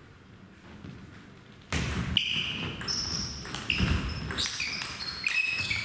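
Table tennis rally: the celluloid ball clicks sharply off the bats and the table in quick succession, with short high squeaks of players' shoes on the sports-hall floor. The rally starts about a second and a half in, after a quieter moment.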